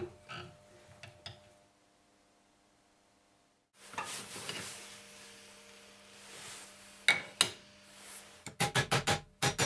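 A steel bench vise being worked around a wooden block: scattered clinks and scrapes of metal and wood, a near-silent gap partway, then a quick run of sharp metallic clicks near the end.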